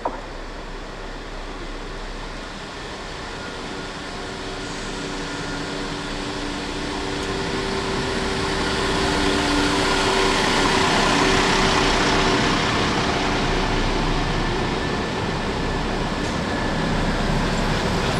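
A West Midlands Railway Class 172 Turbostar diesel multiple unit runs into the platform, its diesel engines humming over wheel and rail rumble. It grows steadily louder as it approaches, then stays loud as the carriages pass close by.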